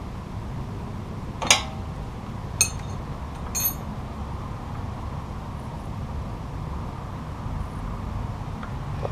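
Three sharp metallic clinks about a second apart, hand tools knocking on metal while the motorcycle's clutch cable is being adjusted, over a steady low background rumble.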